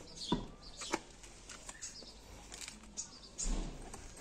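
Scattered light knocks and clicks as an alloy wheel is handled and fitted back onto the hub, with a duller thump about three and a half seconds in.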